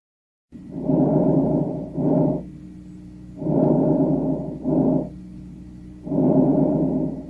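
Recorded lung sounds of a person breathing, starting about half a second in: about three breath cycles, each a long, loud noisy phase followed by a short one and a quieter pause. A faint low hum sits under the pauses.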